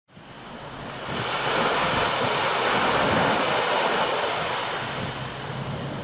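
Small sea waves breaking and washing up a sandy beach, with wind buffeting the microphone. The surf fades in at the start, is loudest after a second or so, then eases a little.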